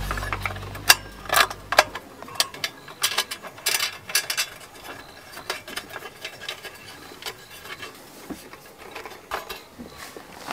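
Stainless steel ring guard being fitted and latched onto the rim of a portable butane burner: irregular metal clicks and clinks, thickest in the first few seconds and sparser after.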